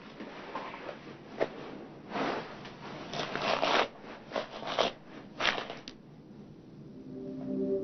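A hairbrush drawn through long hair in a series of swishing strokes, with a few light clicks. Soft sustained music notes come in near the end.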